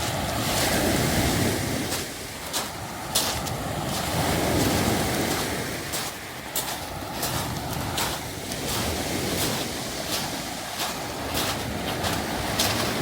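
Waves washing up and drawing back over a beach of smooth round pebbles, surging and easing, with sharp pebble clicks and clatter scattered through.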